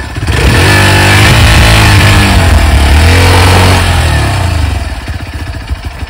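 Motorcycle engine revved hard under load for about four seconds, its pitch rising and falling, as the rider tries to power a bike stuck on rocks over the obstacle; near the end it drops back to a quieter, uneven idle.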